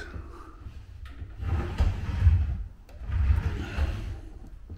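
Drawer of a melamine laundry pedestal rolling on its wheeled guide rails, two soft rolling rumbles as it is moved in and out, with no bang: the rail screws that used to knock against the wheels have been removed and the rail shimmed with a washer.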